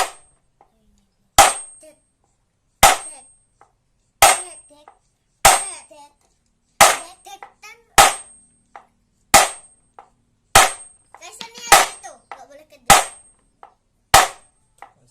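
Hammer blows driving a new splined pulsator gear into a washing machine pulsator: about a dozen sharp strikes, one roughly every 1.3 seconds, each with a short high ring.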